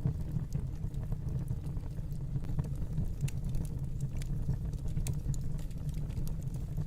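Wood fire in a fireplace burning, a steady low rumble of flames with scattered sharp crackles and pops.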